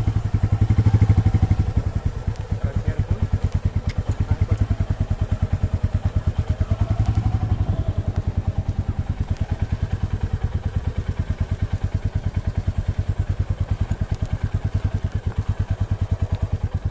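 Royal Enfield Meteor 350's single-cylinder engine running at low speed under a rider and pillion, with a steady, even beat of engine pulses. It gets briefly louder about a second in and again around seven seconds.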